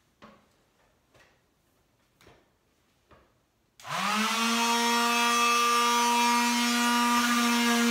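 A few light knocks, then about halfway through an electric hand sander switches on, spins up quickly and runs with a steady whine against an oil-and-gesso painted canvas.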